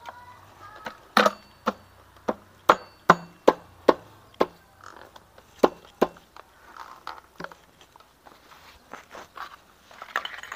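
Sharp knocks on the aluminium magneto cover of a Yamaha Crypton engine as it is pressed and tapped into place on the crankcase: about ten at roughly two a second, the first with a short metallic ring. Softer clicks of metal parts being handled follow.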